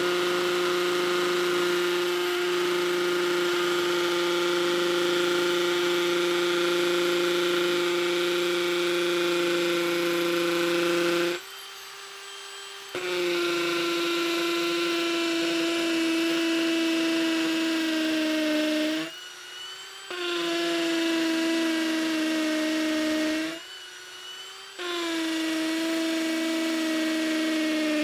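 Ryobi P251 brushless cordless hammer drill in hammer mode, boring into a concrete block with a masonry bit, running with a steady high whine. It stops briefly three times, about 11, 19 and 24 seconds in, then drills on. In the later runs its pitch sags slightly as it loads up.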